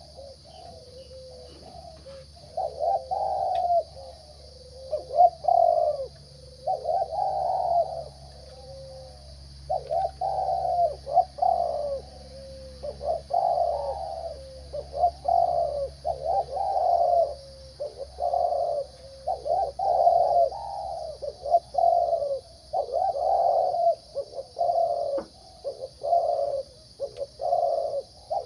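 Zebra dove cooing repeatedly in rolling, trilled phrases about a second apart with short pauses between bursts. The bird has the mid-pitched, rising voice that Thai dove keepers call 'middle voice rising'.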